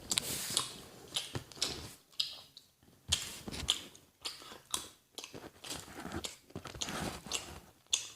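A person chewing the chocolate of a chocolate egg close to the microphone: irregular crunches and mouth clicks.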